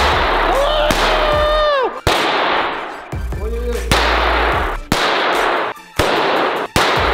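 A rack of firecrackers bursting one after another as a laser beam sweeps across them: loud crackling bangs in a string of abrupt bursts, each about a second long.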